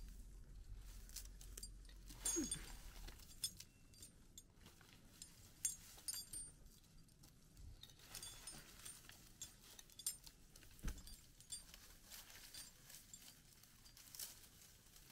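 Faint, scattered clicks and clinks of a tree climber's metal climbing gear as he works his way up a cedar trunk, with a few sharper knocks spaced a few seconds apart.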